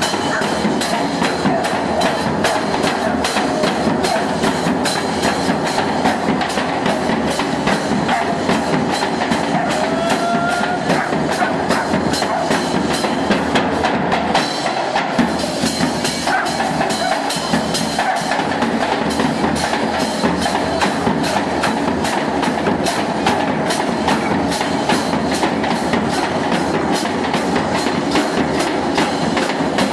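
Chinchinero street percussion: large bass drums carried on the players' backs, beaten with long thin drumsticks, with the cymbal on top of each drum clashing, in a fast, steady, unbroken beat.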